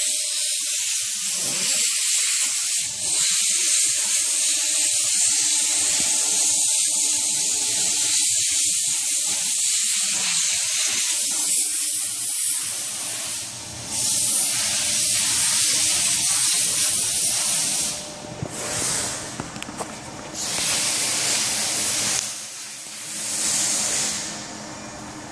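CNC router spindle running at high speed while its bit cuts into pink foam board, making a loud, steady hiss. Near the end the sound turns uneven, dropping away and coming back.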